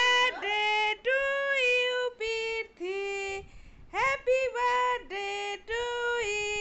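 A single high voice singing a birthday song in long, steady held notes with short breaks between them, with no instruments.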